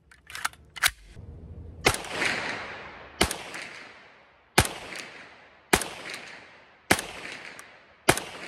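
A few small clicks as a PPS-43 submachine gun in 7.62×25 mm Tokarev is readied, then six sharp shots fired slowly, a little over a second apart. Each shot has a long echoing tail.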